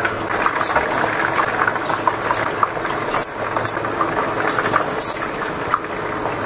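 Chicken pieces deep-frying in hot oil: a steady sizzle with constant small pops and crackles.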